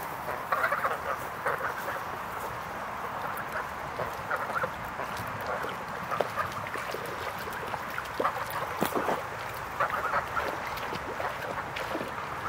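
Domestic waterfowl calling, honks and quacks in short scattered bursts.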